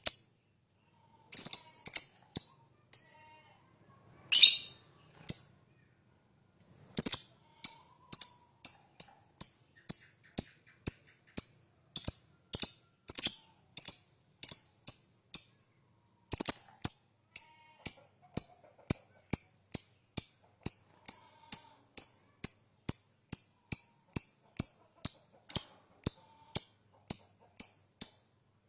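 Green lovebird calling in a long series of short, shrill chirps, about two a second. There are a few breaks of a second or so in the first seven seconds, then the chirps run on steadily.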